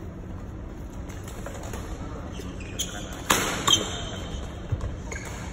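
Badminton rally: rackets striking the shuttlecock several times, the two loudest hits a little past halfway, over the steady background of a large hall.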